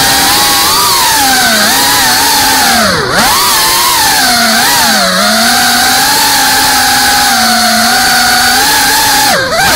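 FPV drone's electric motors whining loudly, the pitch rising and falling with the throttle, with two sharp drops and recoveries where the throttle is chopped, about three seconds in and near the end.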